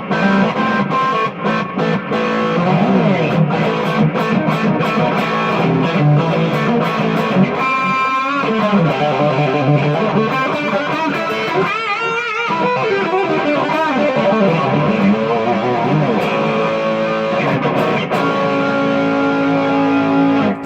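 Electric guitar played through a Donner Yellow Fall delay pedal in the effects loop of a 5150 amp, notes trailing into delay repeats, with bent or vibrato notes about twelve seconds in. The playing stops abruptly at the end.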